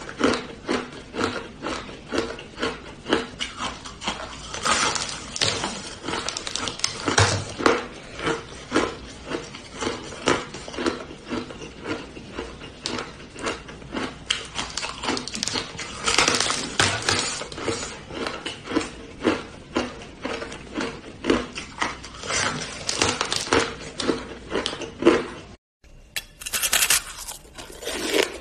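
Teeth biting and crunching through a frozen block of pink ice: a steady run of sharp, brittle crunches, about two a second. Near the end the sound cuts out suddenly, then crunching of a mound of pink shaved ice follows.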